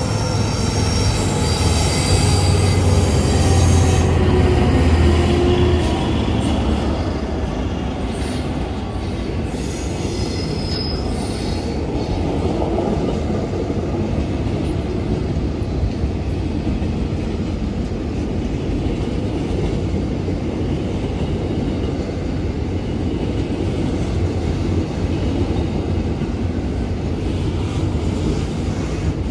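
SCT intermodal freight train passing, its box wagons rolling by with a steady rumble and some wheel squeal. A deep engine drone and a few tones falling in pitch fade out over the first six seconds, leaving the even roll of the wagons.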